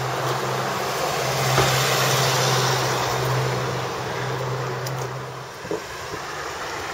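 A motor vehicle's engine running close by with road hiss: a steady low hum under a wash of noise that swells and eases again, cutting off about five and a half seconds in.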